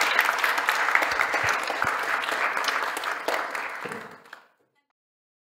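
Audience applauding, a dense patter of many hands clapping, which fades out about four and a half seconds in.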